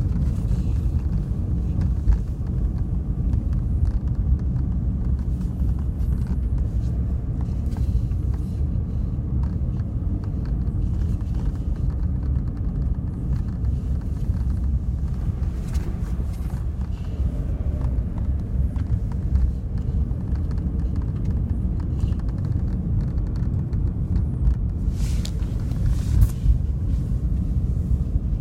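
Road and engine rumble inside a 2015 Toyota Corolla's cabin while driving, with faint, short ticks and creaks every few seconds from the dashboard. The dealer traced this dash noise to a heater hose rubbing against the dash.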